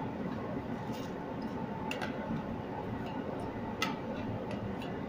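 A metal spoon clicks sharply against a plastic bowl a few times as rice is scraped out into a pan, over a steady background hiss.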